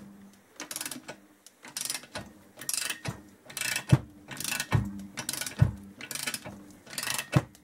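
Ratchet handle on a cylinder stud removal tool, worked back and forth to unscrew a cylinder stud anti-clockwise. About nine short bursts of pawl clicks come a little over one a second, and several strokes end in a dull knock.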